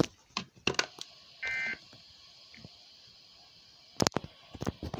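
Midland WR120 weather radio giving one short electronic alert beep about a second and a half in, its signal that a severe thunderstorm warning has come in. Several sharp clicks, louder than the beep, come in the first second and again near the end.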